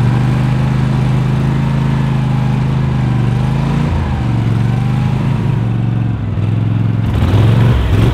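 Boat's outboard motor running under way at speed, a steady engine drone whose pitch dips briefly about four seconds in and then comes back up.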